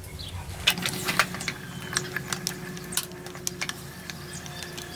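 Hand drill being cranked, its gears clicking irregularly as the bit starts a hole in the steel.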